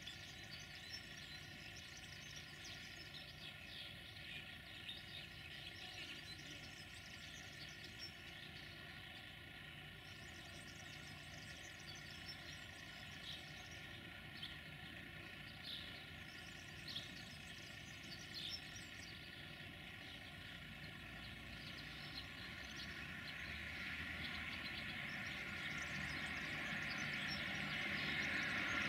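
An LE 5100 kW (class 060-EA) electric locomotive hauling a freight train approaches from a distance. Its steady running hum and the rumble of the train grow louder over the last several seconds. Faint bird chirps sound in the earlier part.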